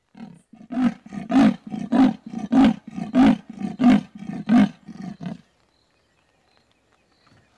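A female leopard sawing: a series of about ten harsh rasping strokes, in and out, roughly two a second. They build up, then fade and stop about five and a half seconds in. This is the leopard's territorial advertising call.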